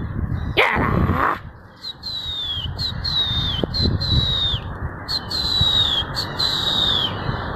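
A high-pitched whistle falls in pitch and repeats about six times in quick succession over steady background noise. A brief loud rush of noise comes about half a second in.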